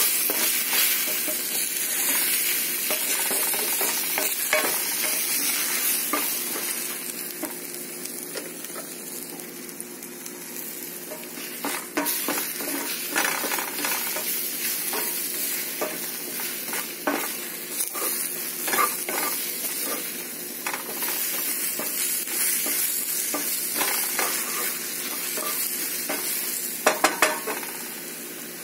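Eggs sizzling in a cast iron skillet while a wooden spatula stirs and scrapes them, with many short scraping clicks. Three quick, sharp knocks come near the end, and the sizzle is quieter after them.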